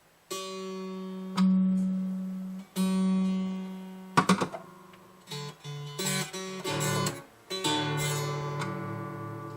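Epiphone FT-130 steel-string acoustic guitar: the same low note is plucked three times and left to ring, then a few shorter notes of different pitch follow. The notes are being compared with a screwdriver pressing on a saddle-height adjustment screw and without, and the tone changes audibly between the two.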